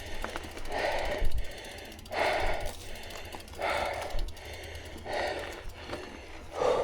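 A mountain biker breathing hard, with a heavy breath about every one and a half seconds, from the exertion of a steep uphill climb.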